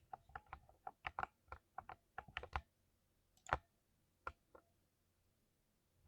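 Typing on a computer keyboard: a quick run of keystrokes for about two and a half seconds, then a few single, spaced-out keystrokes, the loudest about three and a half seconds in, before the typing stops.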